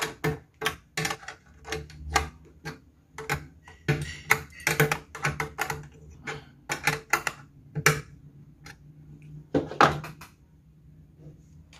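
Sharp metal clicks and clacks of an 8 mm wrench working a nut tight, coming irregularly two or three times a second and stopping near the end.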